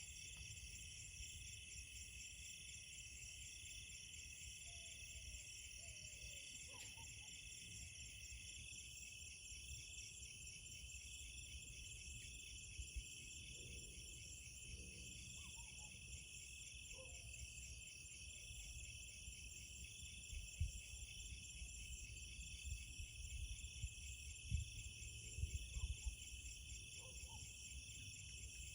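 Night insect chorus: crickets trilling steadily and densely in two high bands, with a few faint short calls lower down and some soft low thumps in the second half.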